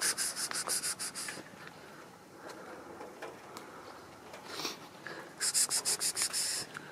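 Two bursts of rapid, scratchy rubbing strokes, about seven a second, one near the start and another about five and a half seconds in.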